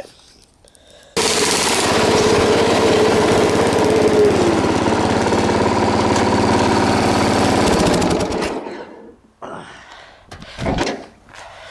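Craftsman riding lawn tractor's engine running steadily. It starts abruptly about a second in and cuts out about seven seconds later.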